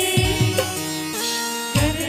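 Garba band music, instrumental: pitched drum hits that drop in pitch as they ring, under held melody notes. The drums stop about half a second in, leaving only the sustained notes, and come back in near the end.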